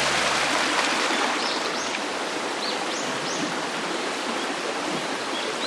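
Mountain stream rushing steadily over rocks, with a few short, high bird chirps in the middle.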